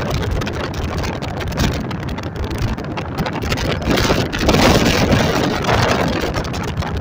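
Storm wind buffeting the microphone, a loud rushing noise that rises and falls in gusts, stronger after about four and a half seconds.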